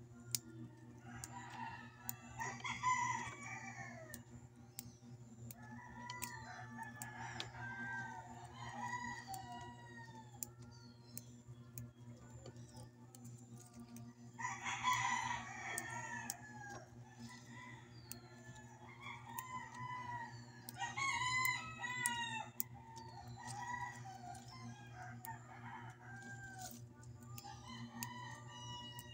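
Chickens: a rooster crows several times, loudest about 2, 15 and 21 seconds in, amid hens clucking, over a steady low hum.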